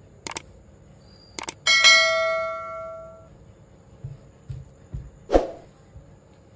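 Two short clicks, then a single bright metallic ding that rings with several clear tones and fades over about a second and a half. A single knock comes near the end.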